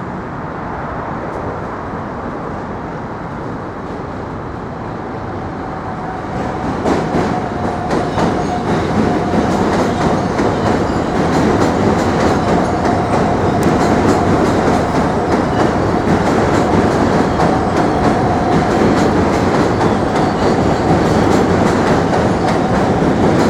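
New York City subway train crossing the Manhattan Bridge on the tracks beside the walkway, getting louder about six seconds in as it comes close. Wheels clatter fast over the rail joints, with a steady high whine running through the passage.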